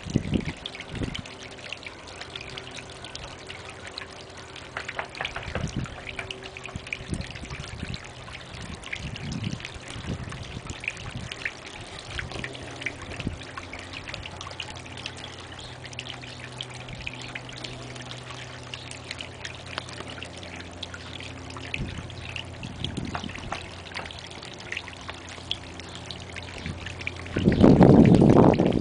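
Water from a gargoyle garden fountain trickling and splashing over the ice-encased statue into its frozen basin, with scattered small drips and splashes. A louder, brief rumble comes about a second before the end.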